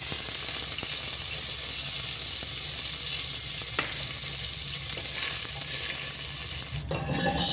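Curry leaves dropped into hot oil in a stainless steel pot, sizzling at once and keeping up a steady, loud sizzle as they are stirred with a wooden spoon. There is a single click about halfway through, and the sizzle dies down near the end.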